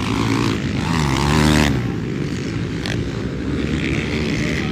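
Motocross bike engines revving hard. One climbs in pitch and is loudest about a second and a half in, then drops away suddenly, with the steady drone of other bikes on the track underneath.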